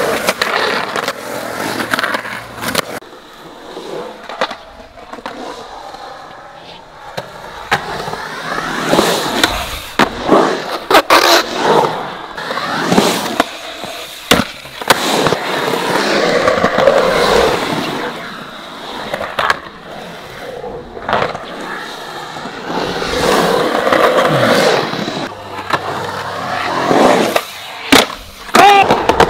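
Skateboard wheels rolling on concrete, the roll noise swelling and fading as the riders carve, with several sharp clacks of boards popping and landing.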